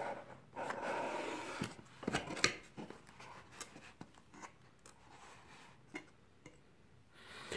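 A small cardboard box being opened by hand: a soft scraping rustle of the lid for the first second or so, then scattered light taps and clicks of cardboard as the lid is lifted and held open.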